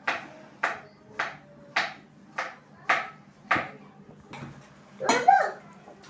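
A kitchen knife chopping on a cutting board: seven sharp knocks about every half second, stopping after about three and a half seconds.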